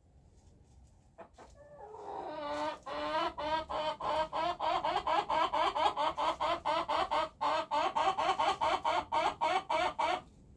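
Bielefelder pullet giving a long run of rapid, repeated clucks, about three or four a second. It starts with a single call about a second in, builds quickly, and cuts off suddenly near the end.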